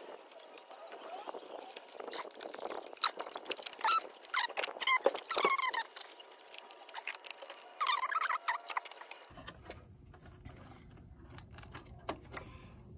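Screwdriver and wire handling at an irrigation controller's terminal strip: a run of small clicks and scrapes, with a few short squeaky chirps mixed in around the middle. The last few seconds are quieter, with a faint low hum.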